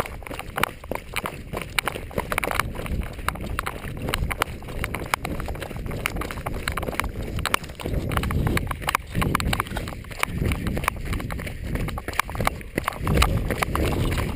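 Running footsteps of trail shoes on a dry dirt path, an even patter of strikes, with wind and handling rumbling on the handheld camera's microphone several times in the second half.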